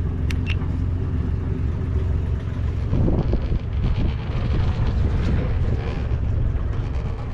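Sailboat's inboard diesel engine running steadily, with wind buffeting the microphone from about three seconds in.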